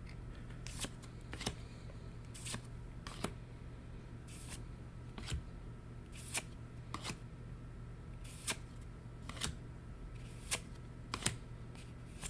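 Trading cards from a freshly opened Weiss Schwarz booster pack being slid and flipped one at a time: short soft card slides and taps, about one a second at an uneven pace, over a faint steady hum.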